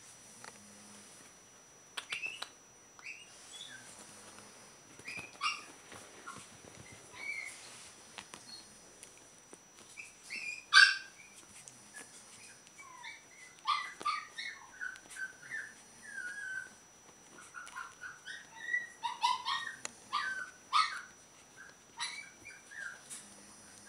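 Chihuahua puppy giving many short, high-pitched yips and little barks as it plays, sparse at first and coming thick and fast in the second half, the loudest about eleven seconds in.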